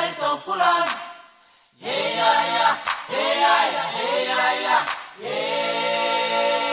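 Background music: a group of voices singing a cappella in harmony, in short phrases with brief breaks, closing on a long held chord in the last part.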